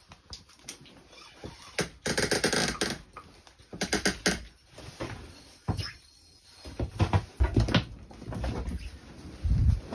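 Spinning reel being cranked as a fish is brought up through the ice, a quick run of clicking about two seconds in and more clicks a little later, then a few low thumps and knocks of handling at the hole near the end.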